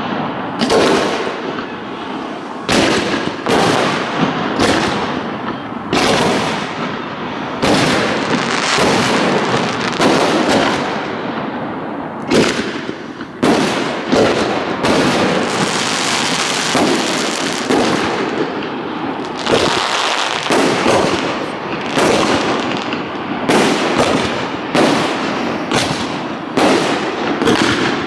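Aerial firework shells bursting one after another at a fireworks display: dozens of sharp bangs at irregular spacing, over a continuous crackling rumble of burning stars. A few seconds past the middle the bangs thin out under an even hiss before they pick up again.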